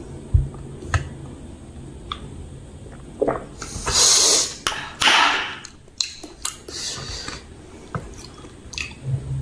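Close-miked mouth sounds of eating pani puri: wet chewing and small smacking clicks, with two loud breathy rushes through the open mouth about four and five seconds in.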